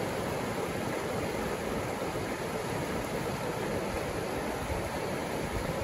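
Shallow river rapids rushing over rocks: a steady rush of water.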